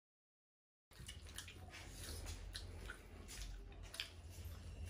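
Dead silence for about the first second, then close-up wet eating sounds: chewing, lip-smacking and finger-licking of several people eating with their hands, over a low steady hum.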